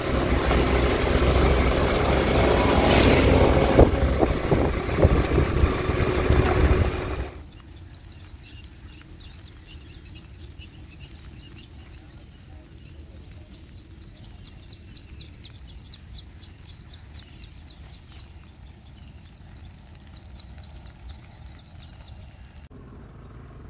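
Wind noise on the microphone and road noise from a motor scooter riding along a waterlogged road. After about seven seconds this cuts off suddenly to quiet open country, where a bird calls in quick runs of short high chirps, about five a second.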